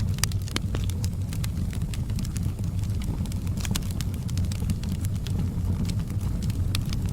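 Wood fire burning, with a steady low rumble of the flames and irregular sharp crackles and pops from the burning logs.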